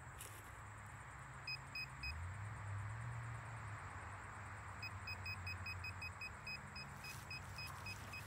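Handheld metal-detector pinpointer beeping: three quick beeps, then from about five seconds in a steady run of about five beeps a second, the signal that metal is right at the probe tip. A low drone runs underneath and rises in pitch about two seconds in.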